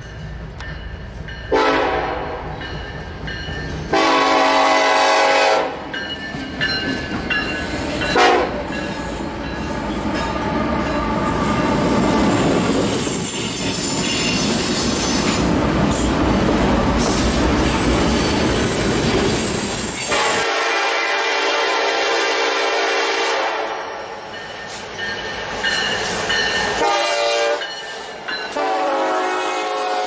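Diesel freight locomotive air horns: two long blasts and a short one in the first several seconds, then the steady noise of a freight train rolling past on the rails, then more long horn blasts in the second half.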